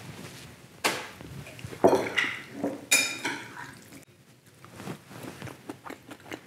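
Metal spoon clinking and scraping against a glass mixing bowl as a chopped-herb marinade is stirred, with three sharp clinks about a second apart. The sound drops to faint small ticks after about four seconds.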